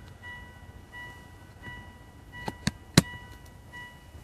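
A few light clicks and taps from objects being handled inside a car cabin, the sharpest about three seconds in, over a faint on-and-off high tone.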